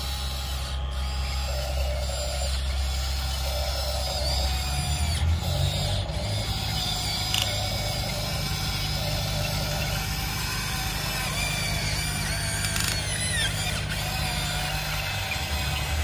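Electric motors and gearboxes of RC toy excavators whirring in short spurts as the tracks and arm are driven, over a steady low hum.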